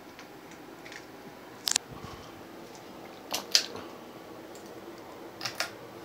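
1987 Kmart Alaska 42-inch ceiling fan running with a steady low hum. Three pairs of sharp clicks, about every second and a half to two seconds, stand out over it.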